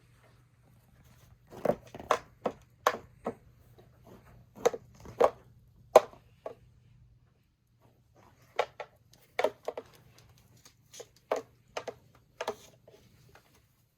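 Kitten playing with a crinkle-filled toy mouse: two flurries of sharp taps, knocks and crinkles as the toy is batted and bitten.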